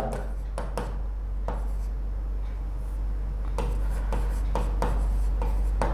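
Pen strokes scratching and tapping on a touchscreen writing board as a word is written out by hand, in a string of short irregular strokes over a steady low hum.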